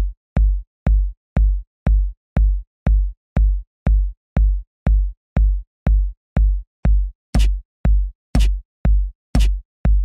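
Background music from Incredibox: an electronic beatbox-style beat with a deep kick drum about twice a second. From about seven seconds in, a sharp high snare-like hit joins once a second.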